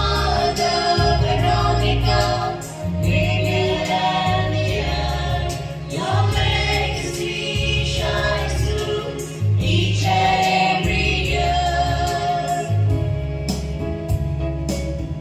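Choir of mixed voices singing in phrases, amplified through a PA and accompanied by an electronic keyboard holding sustained bass chords.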